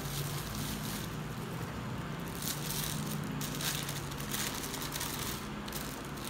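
Clear plastic bag crinkling and rustling in several short bursts as it is handled and unwrapped from around a camera lens, over a steady low hum.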